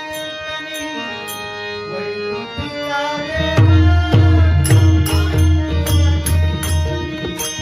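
Bhajan accompaniment without singing: a harmonium holding steady notes over light hand-drum strokes and small hand cymbals. About three and a half seconds in, the drum's deep bass strokes come in strongly and keep a steady rhythm with the cymbals.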